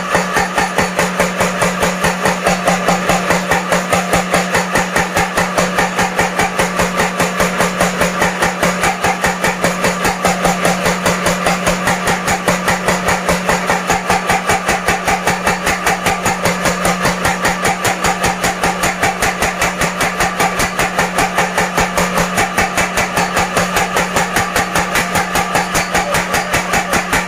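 Blacksmith's mechanical power hammer running steadily, its ram striking in a fast, even rhythm over a constant machine hum.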